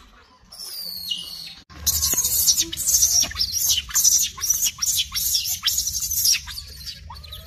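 Rapid high-pitched chirping and squeaking calls, dense for about five seconds after the sound cuts suddenly, with a single falling squeal just before the cut.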